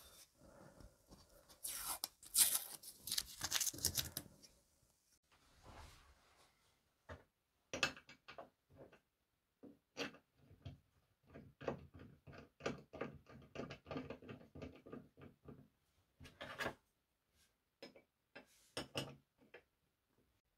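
A short stretch of rustling and scraping about two seconds in. It is followed by a long run of small, sharp metal clicks and taps as the blade and lever cap of a cast-iron block plane are handled and fitted onto the plane body.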